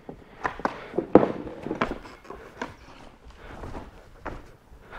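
Footsteps crunching over loose rubble and broken stone, with chunks clattering underfoot in an uneven stream of crunches, the sharpest about a second in.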